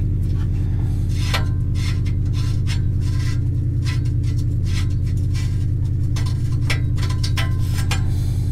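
Upstream oxygen sensor being worked loose by hand from the exhaust pipe: scattered light clicks and rubbing of metal and wire, over a steady low hum.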